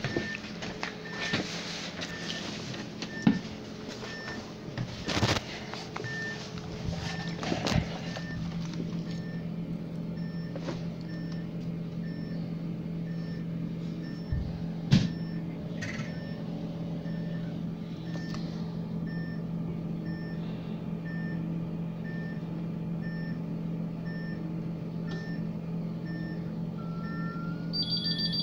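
Inside a Sor EBN 10.5 battery-electric city bus standing at a stop: a steady low electrical hum with a short beep repeating about twice a second. Footsteps and knocks in the first few seconds.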